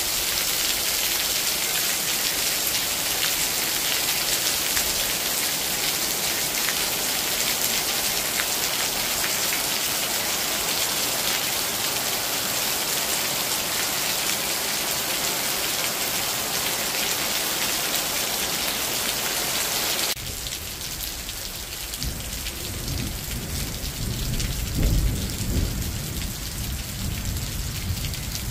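Steady rain falling, an even hiss. About two-thirds of the way through it cuts to lighter rain under a deep rolling rumble of thunder that swells and falls near the end.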